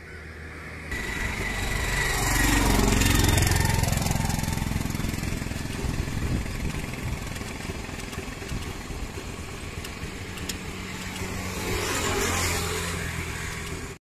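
Road vehicles passing close by. One engine swells to its loudest about three seconds in, its pitch falling as it goes past. A second vehicle passes near the end.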